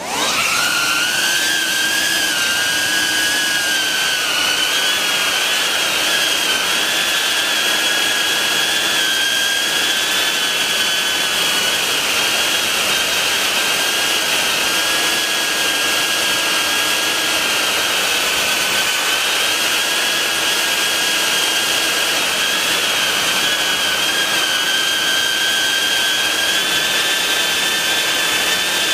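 BetaFPV 95X V3 quadcopter's brushless motors and propellers, heard through the camera mounted on the quad. They spin up with a sharply rising whine about a second in, then hold a steady high whine whose pitch wavers slightly with throttle.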